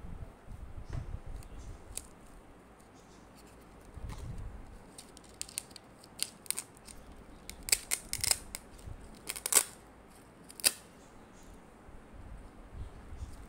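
Laminated activity cards and puzzle pieces being peeled off and handled on a plastic binder page: a few dull thumps early, then clusters of short, crisp rasps and clicks in the middle.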